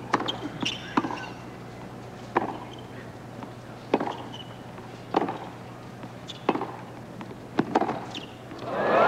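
A tennis rally: sharp pops of the racket strings striking the ball, and the ball bouncing on the court, about every second or so. Near the end the crowd's applause swells up as the point ends.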